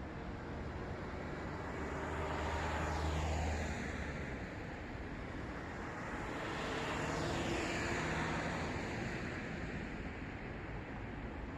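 Road traffic: two cars pass one after another, each swelling in tyre and engine noise and dropping in pitch as it goes by, over a steady background of street noise.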